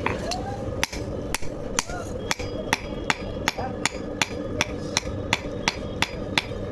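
Blacksmith's hammer striking metal, about two to three blows a second in a steady rhythm, each blow ringing briefly, over a steady low drone.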